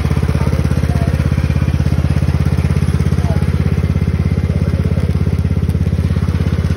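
Cub Cadet riding lawn tractor's small petrol engine running steadily close by, with an even, rapid pulse.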